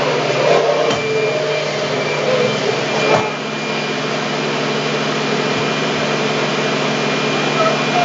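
Upright vacuum cleaner running steadily, with a single knock about three seconds in.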